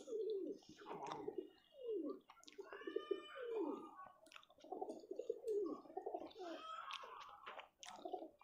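Pigeons cooing over and over in low swooping calls, with a higher chirping call about three seconds in and a few light clicks.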